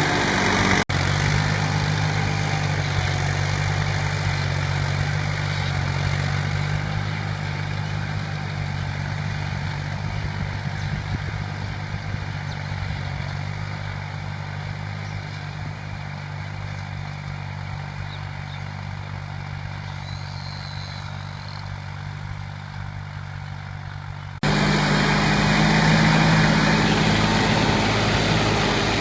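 Diesel tractor engine running steadily, slowly getting quieter over about twenty seconds, then jumping abruptly louder again near the end.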